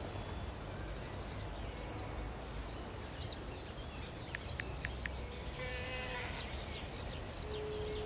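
Outdoor summer ambience: an insect buzzing past a couple of times, with faint short high chirps repeating about every half second over a low steady rumble.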